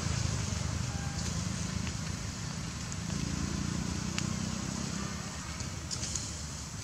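Outdoor ambience: a steady low rumble like distant engine noise, with a few faint crackles of dry leaves.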